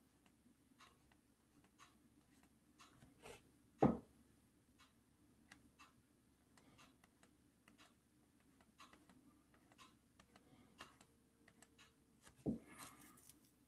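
Faint scattered clicks and taps at irregular intervals, with two louder thumps: one about four seconds in and one near the end.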